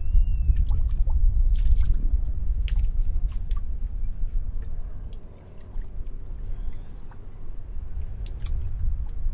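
Water splashing and sloshing, with scattered drips and sharp clicks over a strong low rumble that drops away briefly about halfway through.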